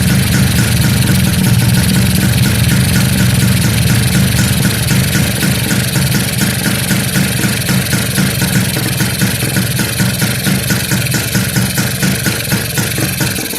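Kawasaki GTO 125's single-cylinder two-stroke engine idling steadily, run while its 2T oil pump line is being bled of air. The idle turns a little more uneven near the end.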